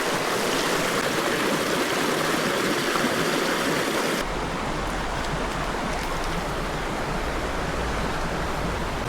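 Creek water rushing steadily. About four seconds in the sound changes abruptly, turning duller with a low rumble underneath.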